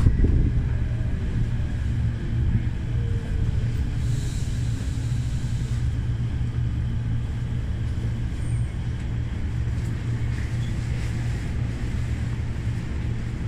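Cabin running noise of a Tokyo Metro 05 series electric train: a steady low rumble from wheels and rails. Over the first few seconds a faint motor whine falls in pitch as the train slows toward its terminal stop.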